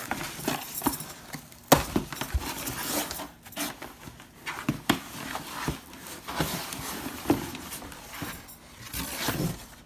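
A package being opened and unpacked by hand: packaging rustling, with scattered knocks and clicks as the box and its contents are handled.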